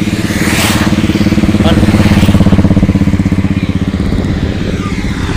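Diesel engine of a loaded lorry running, a steady fast throbbing that swells slightly about two seconds in and then eases.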